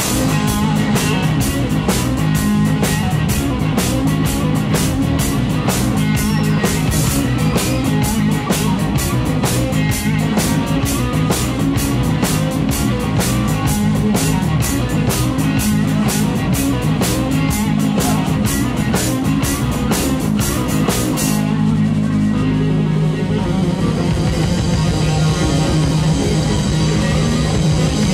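Live rock trio — electric guitar, bass guitar and drum kit — playing an instrumental passage without vocals, the drummer driving it with steady cymbal strikes. About 21 seconds in the cymbals drop out, leaving guitar and bass, and the drums come back in right at the end.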